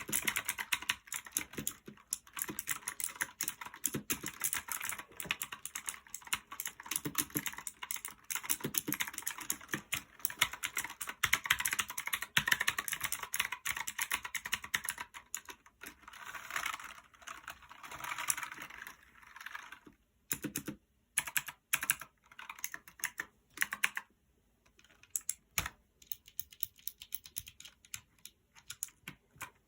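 Typing on a One Up G300 mechanical keyboard with clicky Otemu Blue switches. The keystrokes are fast and continuous for about twenty seconds, then turn slower and separate, with short pauses.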